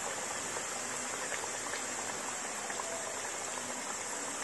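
Hollowed potato halves deep-frying in hot oil: a steady sizzle with fine crackling.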